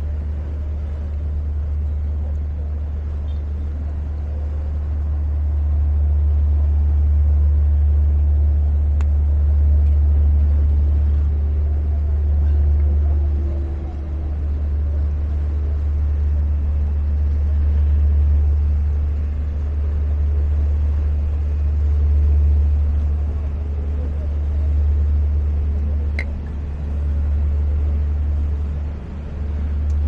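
Steady deep rumble of outdoor city ambience, with only faint background noise above it and a single brief sharp chirp about 26 seconds in.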